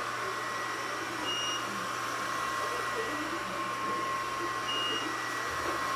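Robot vacuum cleaner running steadily: a constant hiss of suction with a steady whine from its motor. There is a brief high tone about a second and a half in.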